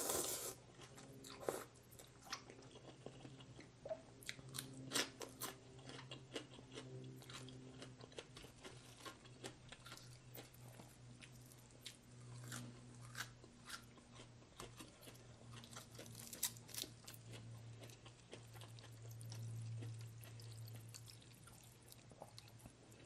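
A person chewing and biting crunchy food close to the microphone: many short, irregular crunches and crackles throughout, over a low steady hum.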